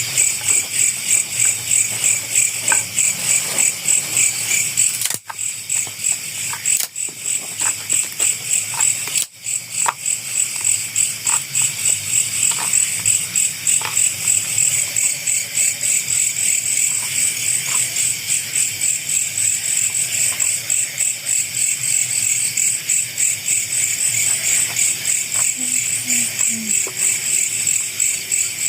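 Dense chorus of night insects, crickets among them, chirping in rapid continuous pulses at two high pitches. It cuts out briefly three times, around five, seven and nine seconds in.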